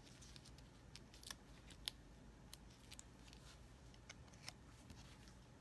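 Faint, scattered small clicks and paper rustles of hands at work on a paper card as foam adhesive dimensionals are peeled from their sheet and pressed on; the sharpest click comes about two seconds in.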